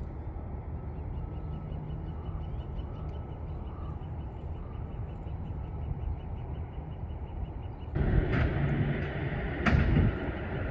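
Steady low rumble of distant motor traffic and machinery, with a faint even ticking above it. About eight seconds in it grows louder, with a couple of sharp clicks.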